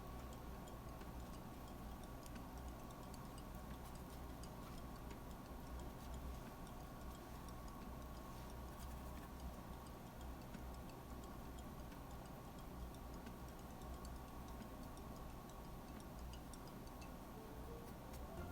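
Faint light ticks over a faint steady hum.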